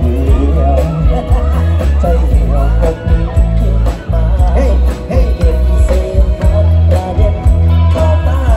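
Live band music played loud through a PA: a man singing into a microphone over electric guitars, heavy bass and a steady drum beat.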